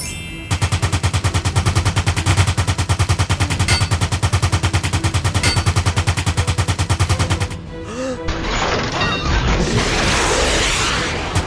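Machine-gun fire sound effect for a minigun: a fast, even run of shots lasting about seven seconds. Then a few seconds of loud rushing noise.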